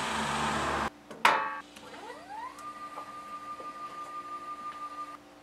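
Stepper motors of a home-built Arduino CNC machine moving the Dremel carriage. After a click, a whine rises in pitch as the motors speed up, holds steady for about two and a half seconds, then stops abruptly.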